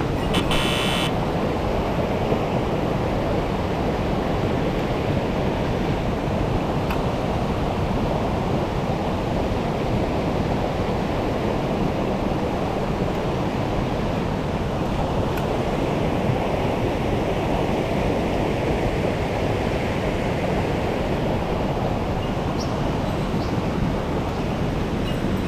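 Steady rush of a mountain stream's flowing water, with a short rapid run of clicks about half a second in.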